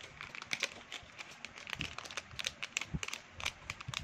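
Close handling noises: a rapid, irregular run of small clicks and plastic crinkling as a 64 GB memory card is handled to be put into an action camera.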